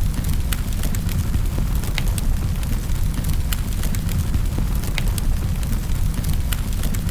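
Wood fire crackling in a fireplace: frequent sharp snaps and pops over a steady low rumble.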